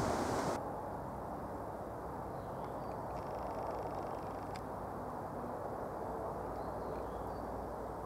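A louder hiss cuts off about half a second in, leaving a steady low outdoor rumble with a few faint high chirps around the middle.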